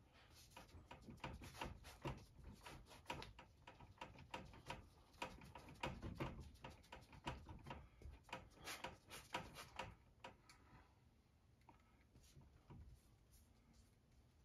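Gloved hand dabbing and rubbing acrylic paint onto a stretched canvas: a quick, irregular run of soft taps and scrubbing strokes for about ten seconds, then fading to faint occasional touches.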